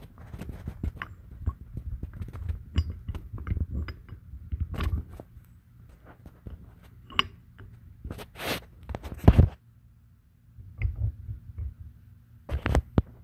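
Irregular clicks, knocks and rustling of metal parts and tools being handled on a workbench, with a few louder clanks about five, seven and nine seconds in and near the end.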